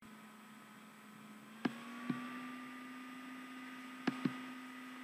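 A steady electrical hum with faint higher steady tones, broken by two pairs of short computer-mouse clicks about two and four seconds in. The hum rises slightly in pitch after the first click.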